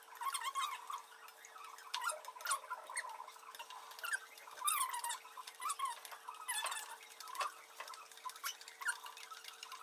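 Crêpe batter being stirred in a mixing bowl as flour is poured in: irregular squeaks, scrapes and light clicks of the utensil against the bowl.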